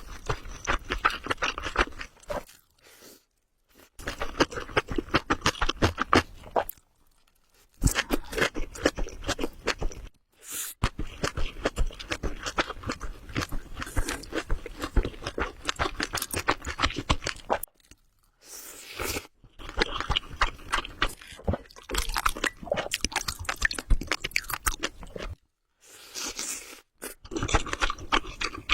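Close-miked chewing and crunching of food by a person eating, dense runs of wet clicks broken by a few short pauses.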